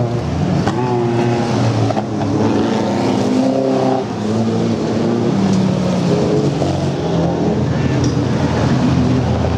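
Several off-road race buggies and trucks driving past with their engines revving, the pitch rising and falling as each accelerates by. The sound dips briefly about four seconds in, then the engines carry on.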